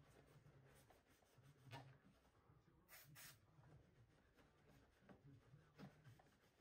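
Near silence, with faint rubbing of a cloth wiping glue squeeze-out off a wooden architrave's mitre joint and a few soft ticks.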